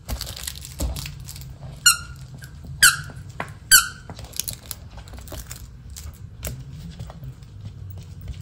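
Rubber squeaky dog toy squeezed three times, each a short squeak falling in pitch, the three about a second apart, with soft clicks and rustles of handling and chewing around them.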